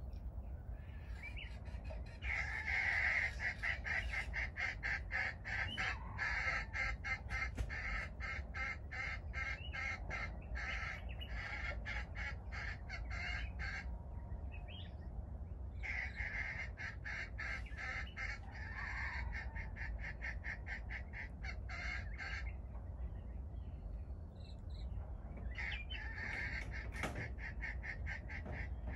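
A bird calling in rapid, harsh, evenly spaced pulses, about four a second, in three runs of several seconds each, over a low steady rumble.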